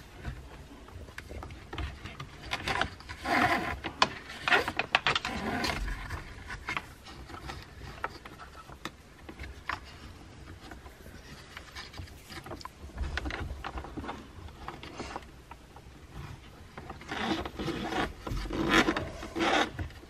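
Braided USB cable being worked by hand behind plastic dash panels: irregular rubbing and scraping of cable and fingers against the plastic, busiest a few seconds in and again near the end.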